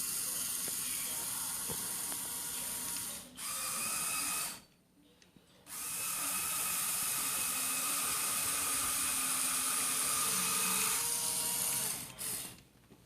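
Lego Power Functions electric motors running through plastic Technic gears with a steady whirring whine. It stops for about a second roughly four and a half seconds in, starts again, and cuts out near the end.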